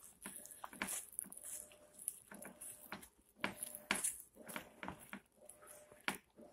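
Wooden spoon stirring flour and olive oil in a glass mixing bowl: irregular soft scrapes and light knocks of the spoon against the glass as the shaggy dough mix is worked.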